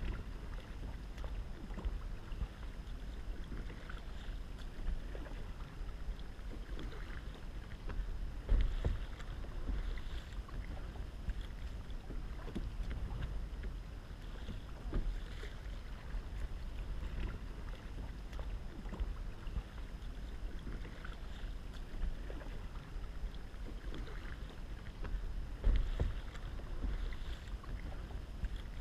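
Kayak paddle strokes dipping and splashing in calm lagoon water, heard from on board a plastic sit-on-top kayak, over a steady low rumble. Two louder low thumps come about eight seconds in and again near the end.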